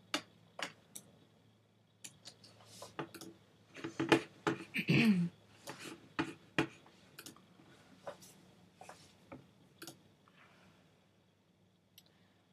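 Scattered light clicks and taps at an irregular pace, with a brief falling hummed vocal sound about five seconds in.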